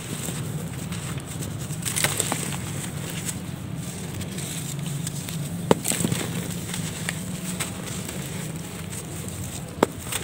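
Dry sandy clay chunks crumbling and breaking in the hands, a grainy crackling with a few sharp snaps as pieces give way, over a steady low hum.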